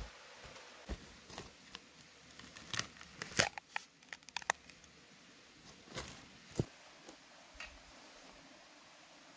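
Irregular clicks, snaps and crinkles of something being handled, densest a few seconds in, then a few scattered snaps.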